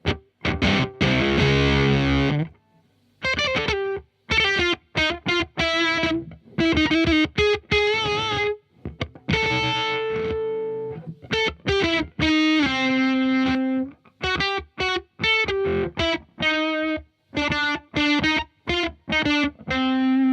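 Electric guitar played through a FuzzHugger FX Lab Ratchet fuzz pedal with its Push (gain) knob turned all the way up: about two seconds of thick fuzzed chords, then a string of short single notes and riffs. Each phrase is cut off abruptly into silence by the pedal's gate.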